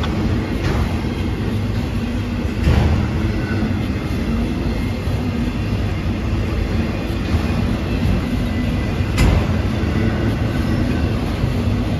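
Freight train of autorack cars rolling past: steady noise of steel wheels on rail, with a few sharp clanks as wheels cross rail joints, the loudest a little under three seconds in and again about nine seconds in.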